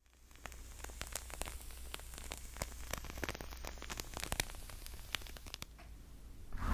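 Faint, irregular crackling and ticking of a burning candle, over a low steady hum. Near the end, loud rough scratching on a foam microphone cover begins.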